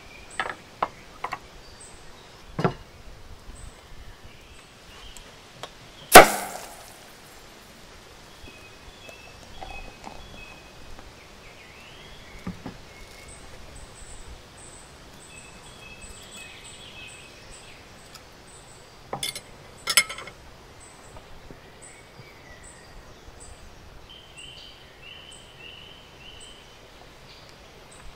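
Fork and knife clinking and knocking on a ceramic plate while roast duck is cut, with scattered sharp clicks, the loudest about six seconds in and a pair near twenty seconds. Birds chirp softly in the background.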